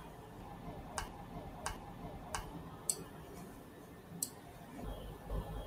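Quiet room tone with about five faint, sharp clicks at uneven intervals, a low rumble rising near the end.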